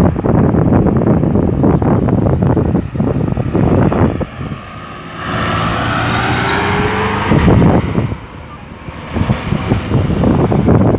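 Road traffic: cars and trucks going past, with wind buffeting the microphone. About five seconds in, one vehicle passes close, its engine note rising slightly under a louder hiss.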